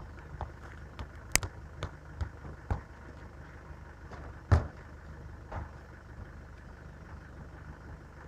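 Footsteps of hard-soled shoes on gritty concrete close by, about two steps a second, with the loudest step about four and a half seconds in, then fading. A steady low rumble, like a vehicle running, underlies it.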